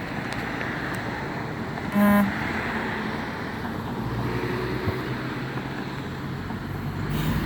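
A single short car horn beep about two seconds in, over steady road traffic noise. A low engine hum comes in after about four seconds.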